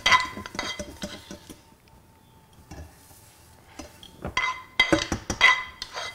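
A metal utensil scraping and clinking against a pot and plate while cooked barley is scooped out and served: quick ringing clinks for the first second or so, a quieter pause, then another run of clinks near the end.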